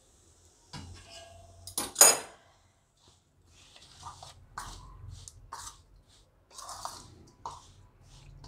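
A spoon clinks against a stainless steel bowl about two seconds in. Then coarse, oily pickle masala is worked by hand against the inside of the bowl in a run of short scraping, rustling strokes.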